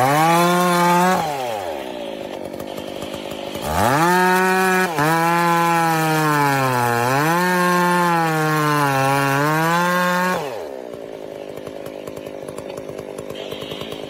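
Two-stroke chainsaw revved to full throttle for about a second, then dropping to idle. About four seconds in it is revved again and held for some six seconds while cutting into a log, its pitch dipping twice as it cuts, before falling back to idle.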